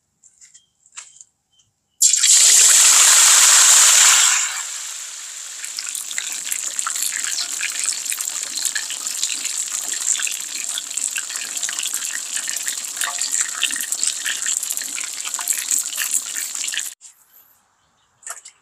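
A whole fish going into hot oil to deep-fry: a sudden loud burst of sizzling about two seconds in, easing after a couple of seconds into a steady crackling sizzle that cuts off near the end.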